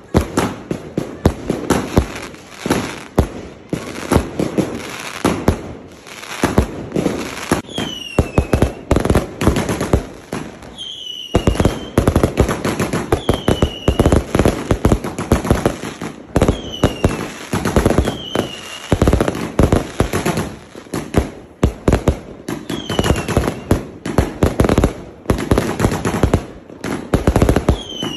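Fireworks display: a rapid, continuous barrage of aerial shell bursts and crackling, with short falling whistles every few seconds and a brief lull about eleven seconds in.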